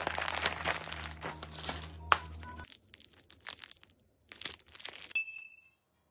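Plastic packaging crinkling and rustling, with scattered clicks and taps, and a short high tone near the end.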